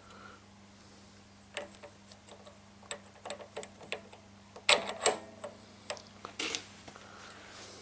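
Scattered small metal clicks and knocks from a lathe tool holder being handled on its quick-change tool post, a few louder knocks near the middle. A faint steady low hum runs underneath.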